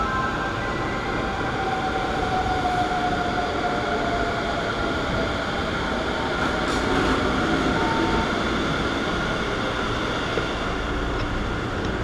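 Taoyuan Airport MRT commuter train pulling in and braking to a stop at the platform: a steady rumble and hiss, with the electric motors' whine gliding slowly down in pitch over the first few seconds as the train slows.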